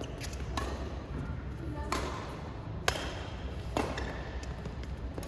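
Badminton rally: a shuttlecock struck back and forth by rackets, several sharp smacks roughly a second apart, over background voices.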